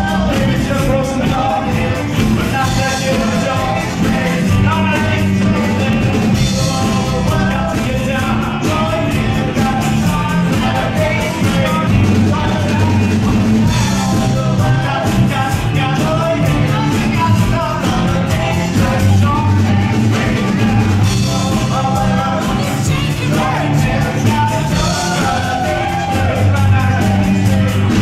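Live band playing a song with a sung lead vocal over electric and acoustic guitars, with a steady beat.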